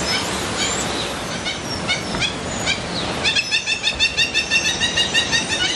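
Birds chirping, then from about three seconds in one bird calls a fast run of repeated high notes, about five a second.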